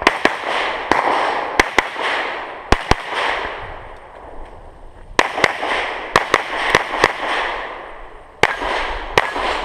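Rapid pistol fire from a Glock 34 9mm during a USPSA stage, mostly in quick pairs (double taps), each shot trailing off in an echo. There is a break of about two seconds in the middle of the string before the firing resumes.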